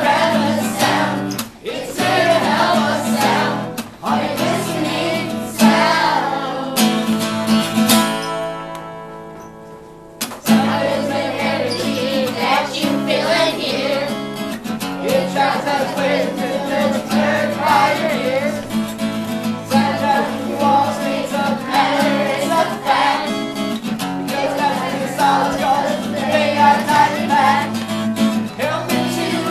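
Background music: a song with singing over instrumental accompaniment. It fades down from about seven seconds in and starts again suddenly just after ten seconds.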